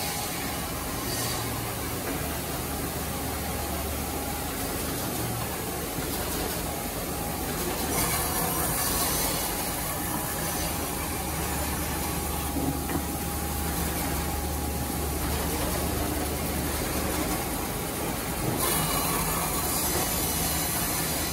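CNC band saw running and cutting through a stack of wooden boards: steady motor hum and machine whine under a cutting hiss that grows louder about a third of the way in and again near the end.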